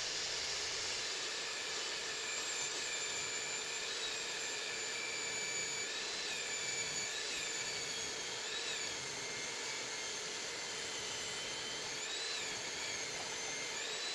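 Table saw running and ripping through a thick hardwood board with its blade raised to the maximum height. The sound is a steady motor whine with cutting noise, and its pitch wavers a few times as the feed changes. It cuts off suddenly at the end.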